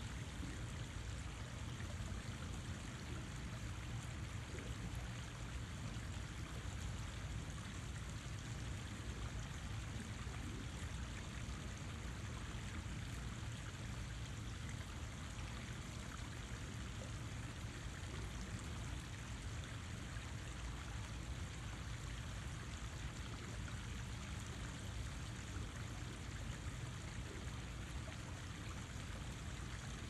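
Water running in a steady, unbroken flow.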